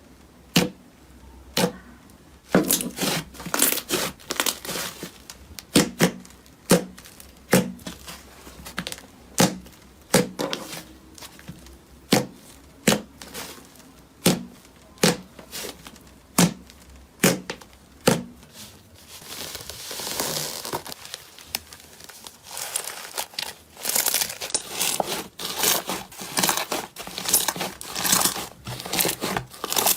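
Slime being worked by hand: a regular run of sharp pops, about one a second, for the first half, then dense crackling and crinkling.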